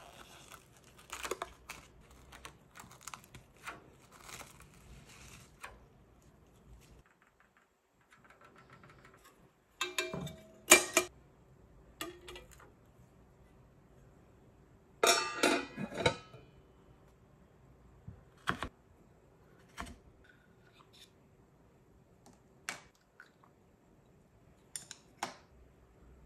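Plastic cling wrap crinkling as it is stretched over bowls of egg mixture, then a ceramic bowl clattering against a metal steamer basket in two loud bursts about five seconds apart, followed by a few light clicks.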